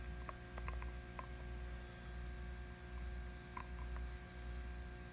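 A few faint clicks of fingers working a snap-on plastic bottle lid that will not pop off, over a steady low hum.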